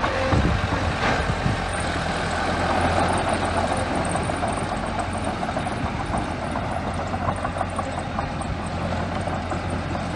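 Small bulldozer's diesel engine running steadily, with a couple of short knocks in the first second or so.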